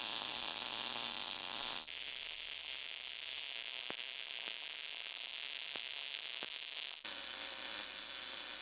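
Short-circuit MIG welding arc running a downhill root on an open butt joint in 11-gauge carbon steel, a steady hiss that changes abruptly in tone about two seconds in and again about seven seconds in.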